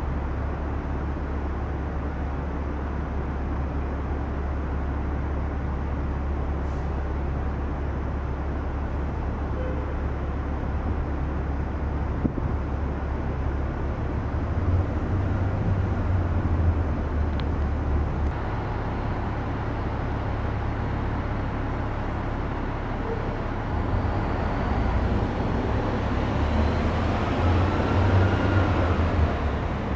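City traffic rumble: a steady low drone that swells twice as vehicles pass, the second time with a whine that rises and falls near the end.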